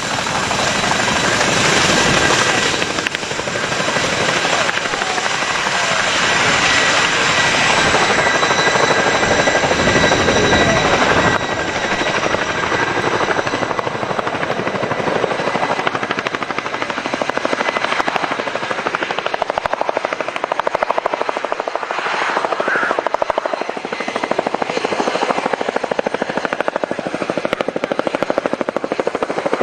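Boeing CH-47 Chinook tandem-rotor, twin-turboshaft helicopter flying close by: a fast steady rotor beat under a steady high whine. It is louder for the first ten seconds or so, then eases slightly.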